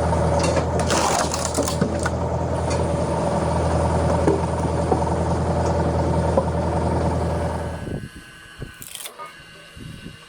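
Engine of a hydraulic log splitter running steadily at constant speed. It drops away abruptly about eight seconds in, leaving only scattered light clicks.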